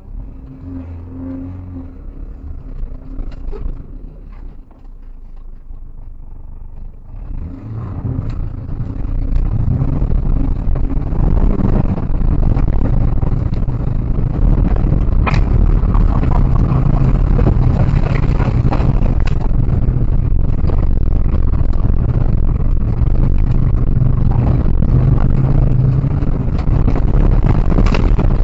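Rally car engine heard from inside the car on a gravel track: it runs quietly for the first few seconds, then accelerates hard from about seven seconds in and stays loud under power, with gravel and bumping noise. The recording is distorted from the loudness.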